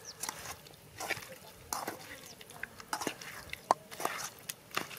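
Raw chicken pieces squelching and slapping as they are mixed by hand in a metal pan, in irregular wet clicks.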